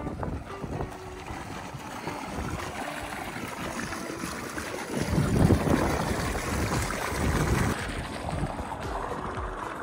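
Wind buffeting the camera microphone with low rumbling gusts, strongest about five to eight seconds in.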